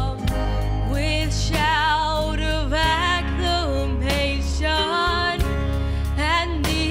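A young woman singing a slow song into a handheld microphone, holding long notes with vibrato, over instrumental accompaniment with a steady bass.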